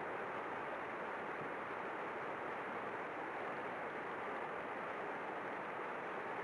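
Steady, even hiss of background noise at a constant level, with no distinct events.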